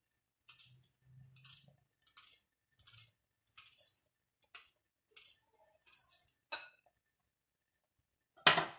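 Kitchen knife slicing through a raw onion held in the hand: about ten crisp cuts, roughly two a second, stopping about seven seconds in. One louder sharp knock or crackle comes near the end.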